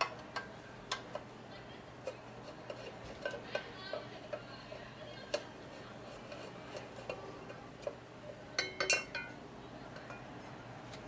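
Scattered light metallic clicks and clinks as the chrome air cleaner is unscrewed and taken off a Harley-Davidson Evo engine, with a louder cluster of clinks about two seconds before the end.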